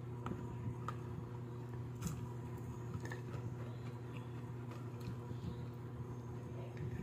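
A person eating fried chicken and rice by hand: soft chewing and squishing with scattered small clicks of fingers on the plate, over a steady low hum.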